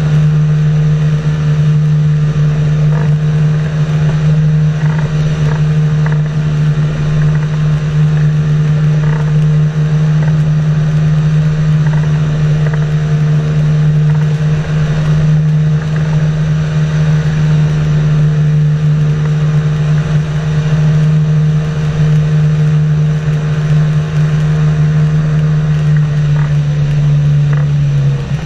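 Engine and pusher propeller of a flying inflatable boat, an inflatable boat slung under a motorised flexwing, droning steadily in level cruising flight with one deep unchanging tone.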